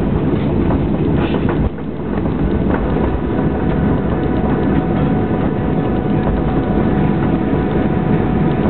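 Inside the cabin of a Boeing 737 taxiing after landing: a steady rush from the CFM56 jet engines at low thrust, with a faint steady whine, and small rattles and clicks from the cabin as the aircraft rolls.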